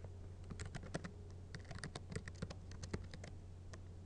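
Typing on a computer keyboard: quick, irregular key clicks, over a steady low hum.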